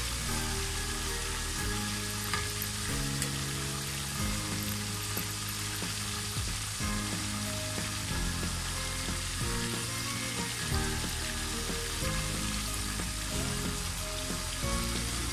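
Chicken drumsticks and wings deep-frying in hot oil, a steady, even sizzle of bubbling oil as the second side cooks on medium heat. Background music with held low notes plays underneath.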